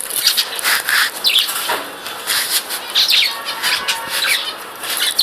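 Several budgerigars chattering, a busy stream of short chirps and warbling calls.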